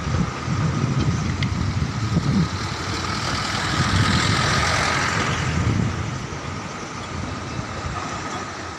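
A pickup truck driving past on the bridge, its engine and tyre noise swelling as it comes close about four to five seconds in, then fading. A steady rushing noise underlies it throughout.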